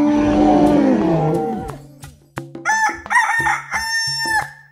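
Outro music with a ticking wood-block beat. A held tone sweeps down and fades in the first second and a half, then about two and a half seconds in a rooster crows in several notes, the last one held.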